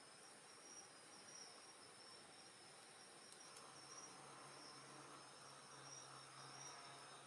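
Faint, steady high trilling of night insects, with a few faint sharp ticks from the campfire crackling. A faint low hum comes in about four seconds in.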